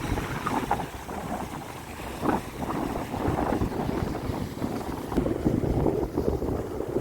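Wind buffeting the phone's microphone, a gusty, uneven rumble.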